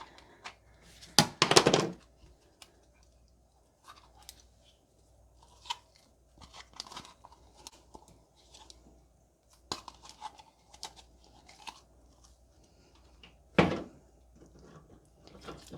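Sticky fluff slime being peeled off a plastic container lid and handled: scattered soft tearing, crackling and clicking, with a louder burst about a second and a half in and another near the end.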